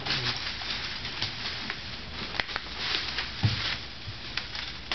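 Rustling of leaves and branches in a maple's canopy, with scattered sharp snaps and a dull thump about three and a half seconds in.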